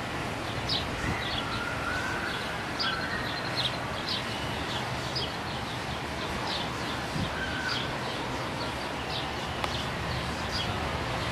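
Small birds chirping, short high chirps about once a second with a few softer whistled notes, over a steady rushing outdoor background like wind.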